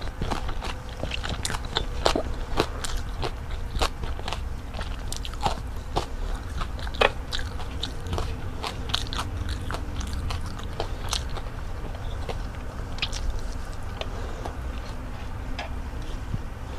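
Close-miked chewing of crispy fried seafood and rice, with many short, sharp crunches and crackles coming unevenly several times a second over a steady low hum.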